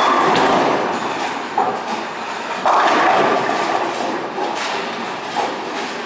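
A bowling ball lands on the lane with a sudden loud onset and rolls down it. About two and a half seconds in, it crashes into the pins with a clatter lasting about a second. Other lanes' rolling and pin noise runs underneath.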